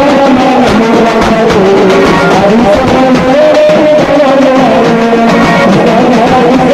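Loud festive band music: a wavering melody over steady beating on large bass drums played with sticks.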